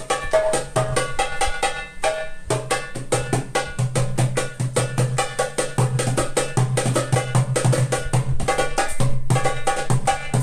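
Darbuka (goblet drum) played in a fast, dense rhythm that mixes deep bass strokes with sharp high strokes, with a brief break about two seconds in.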